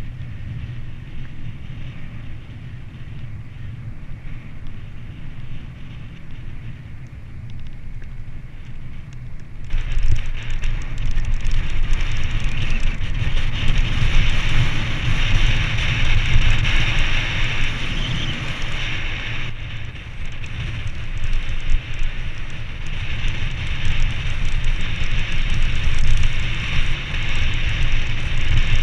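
Wind buffeting a helmet-mounted camera's microphone on a moving mountain bike, with tyre noise on the paved road, as a continuous rumble and hiss. The noise grows suddenly louder and brighter about a third of the way in and stays loud.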